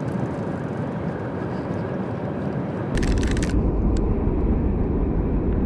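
Wind buffeting the microphone over open water, becoming a much heavier low rumble about three seconds in. Just then there is a half-second run of rapid clicking from a fishing reel.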